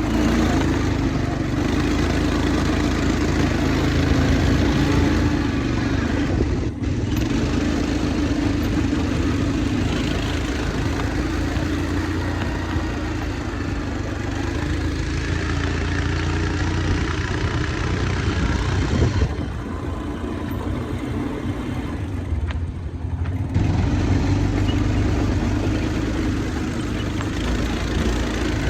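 Quad bike engine running steadily under way, easing off briefly about twenty seconds in.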